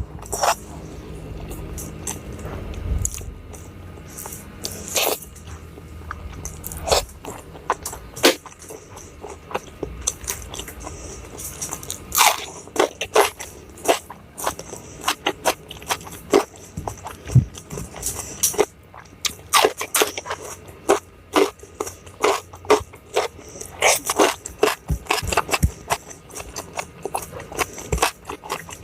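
Close-miked eating: crunchy bites and chewing, with irregular crackles and occasional scrapes, coming in quicker clusters in the second half.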